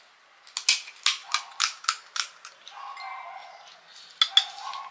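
Crisp, hollow puri shells of panipuri crunching and cracking at close range. A quick run of about eight sharp cracks comes in the first two seconds, softer crunching follows, and two more sharp cracks come near the end.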